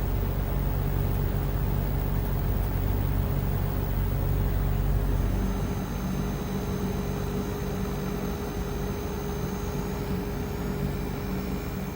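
Air-conditioner outdoor unit's propeller fan running, a steady rush of air with a low hum. About halfway through, the deep rumble drops away and a somewhat higher hum takes over.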